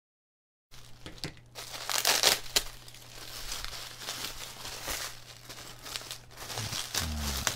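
Bubble wrap being pulled open and crinkled by hand around a 3D-printed terrain piece, a continuous crinkling with sharp crackles and a few louder snaps, starting just under a second in.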